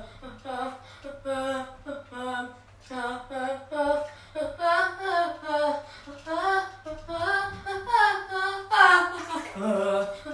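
A high voice singing a melody in short, quick notes that step up and down in pitch.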